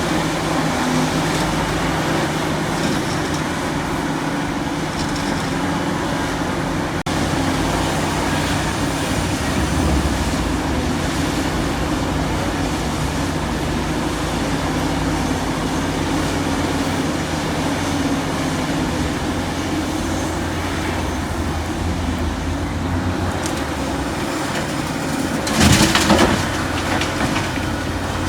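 Large excavator's diesel engine running steadily under load, with one loud crash about a second long near the end.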